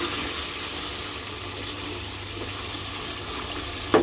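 Pangas fish curry sizzling steadily in a pot as it is fried down in its spice sauce. Near the end a spatula knocks twice against the pot.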